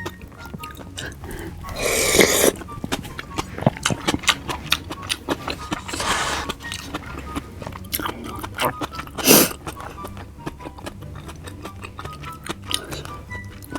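Close-miked eating of raw fish: steady wet chewing with many small mouth clicks and smacks, broken by three louder slurps, about two, six and nine seconds in, the last the loudest and shortest.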